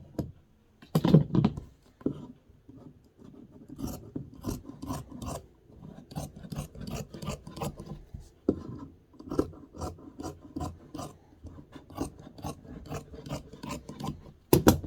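Handheld electric fabric cutter cutting through cloth: a run of short rasping strokes, two or three a second, with a louder knock about a second in and again near the end.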